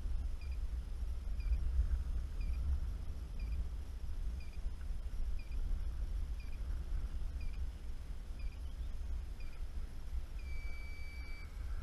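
Wind rumbling on the camera microphone, with short high chirps repeating about once a second and one steady high beep lasting about a second near the end.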